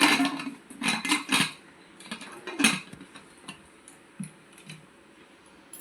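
Metal kitchen utensils and cookware clinking and knocking together: several sharp clatters in the first three seconds, the loudest near the three-second mark, then a few fainter ticks.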